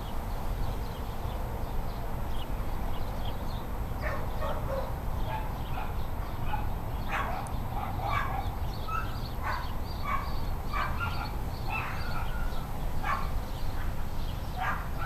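Many short, high animal calls, several a second, over a steady low rumble.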